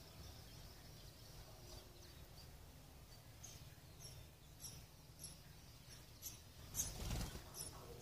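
House sparrows chirping at a nest, short high chirps about twice a second that become more frequent. A brief louder rustle comes near the end as an adult sparrow flies in to land beside the nest.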